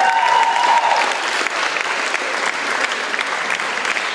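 Small audience applauding steadily, with a held voice note trailing off about a second in.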